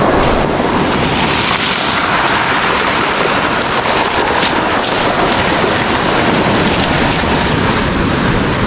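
Steady rush of ocean surf breaking near the shore at high tide, with wind blowing on the microphone.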